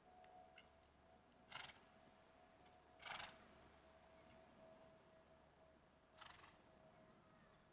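A cantering horse snorting three times, short breathy blows about a second and a half and then three seconds apart, over a faint steady hum.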